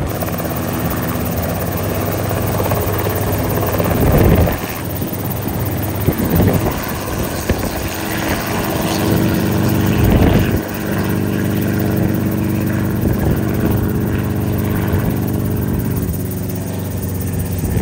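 Enstrom 280FX piston helicopter coming in to land: its turbo-normalized engine and main rotor running steadily as it hovers and settles onto its skids, with two brief louder gusts of noise about four and ten seconds in.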